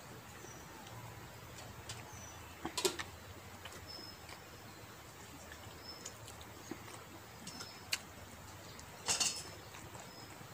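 Quiet eating sounds from rice and pork being eaten by hand off a metal plate: small clicks and taps of fingers and food against the plate, loudest as short clusters about three seconds in and again about nine seconds in. A small bird chirps briefly several times in the background.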